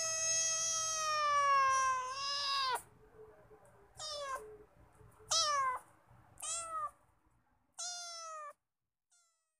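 Cat meowing repeatedly: one long drawn-out meow that slowly falls in pitch, then four shorter meows about a second apart, each sliding down in pitch, and a faint last one near the end.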